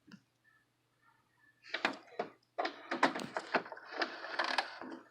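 HP Envy 4520 inkjet printer's mechanism running through its power-up start-up, a quick run of clicks and rattling that begins about two seconds in.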